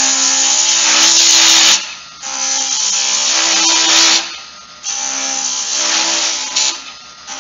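Large bowl-style gouge cutting into a spindle turning on a Jet wood lathe: three long, hissing cuts of about two seconds each, shaping a concave cove. The lathe's motor hums steadily underneath.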